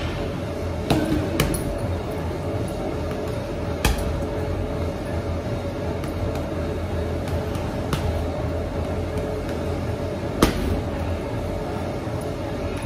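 Gloved punches landing on a hanging heavy bag: a few sharp thuds, the loudest about ten and a half seconds in, over a steady background hum.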